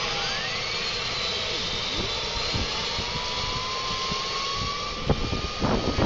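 Small gas turbine of a radio-controlled model jet running: a steady rushing roar with a thin whine that rises slowly in pitch. A few sharp knocks near the end.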